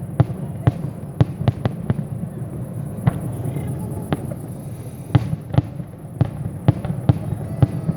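Fireworks display: aerial shells bursting in an irregular series of sharp bangs, about two a second with a sparser stretch in the middle, over a steady low rumble.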